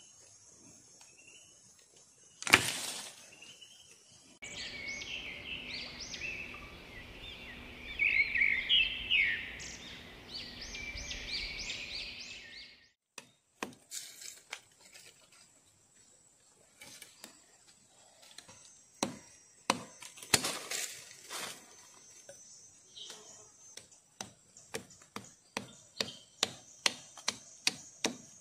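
Machete blade chopping and whittling a thin wooden stick against a log: scattered sharp knocks, then a quick run of strokes, about three a second, near the end. Earlier, a stretch of high chirping calls over a steady hum, and one loud knock a couple of seconds in.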